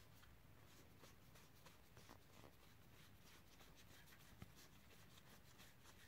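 Very faint soft ticks and rubbing of SEGA Dinosaur King trading cards being thumbed through one by one in a hand-held stack, with one slightly sharper tick a little after four seconds in.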